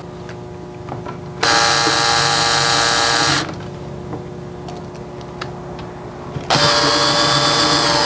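Cordless drill-driver running twice, about two seconds each time, driving the screws of a deadbolt's faceplate into the edge of a wooden door.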